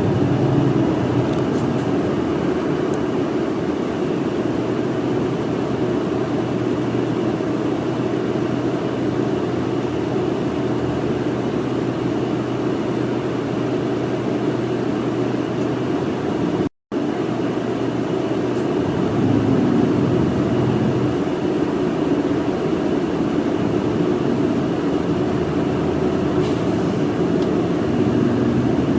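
Inside a city route bus under way: the engine's steady drone mixed with road noise, heard from the passenger cabin. The sound cuts out for an instant a little past halfway.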